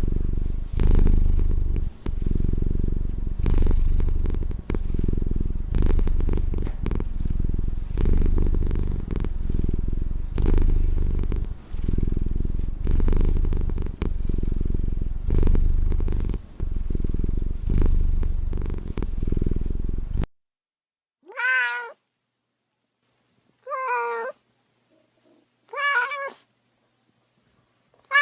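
Domestic cat purring close up, a loud low rumble that swells and dips with each breath. About twenty seconds in it cuts off abruptly, and a cat gives three short meows a couple of seconds apart.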